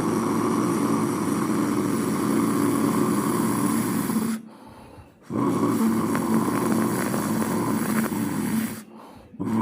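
A person imitating falling rain with the mouth: a steady rushing, hissing vocal noise. It runs in two long stretches, broken by a short pause about four and a half seconds in and another near the end.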